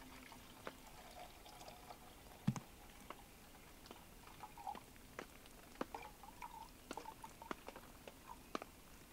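Faint, irregular water drips and light clicks, with one louder knock about two and a half seconds in.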